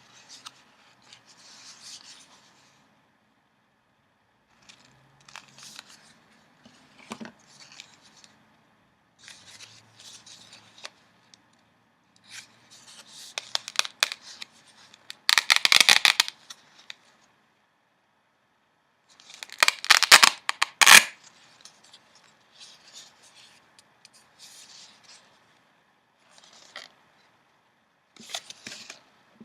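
Newspaper flier pages being handled and turned: crisp paper rustling and crinkling in short bursts, loudest in two spells around the middle.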